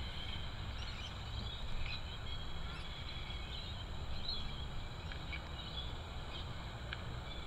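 Quiet outdoor ambience: a low steady rumble under continuous faint high chirping, with a few short chirps standing out now and then.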